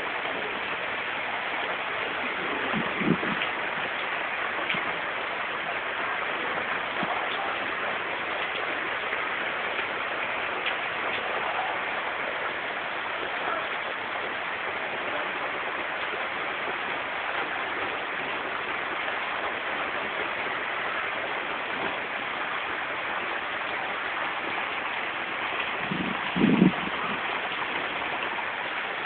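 Steady downpour of rain, a dense even hiss of rain on roofs and wet ground. A brief low thump comes about three seconds in, and a louder one comes near the end.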